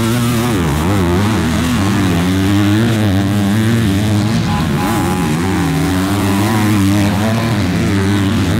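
Several 250-class motocross bikes' engines running hard on the track, their pitch rising and falling as riders work the throttle, over a steady low drone.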